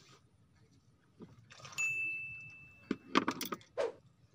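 Fishing rod and spinning reel being handled on a bamboo platform: a cluster of sharp clicks and knocks in the last second and a half. About two seconds in, a single steady high beep sounds for about a second.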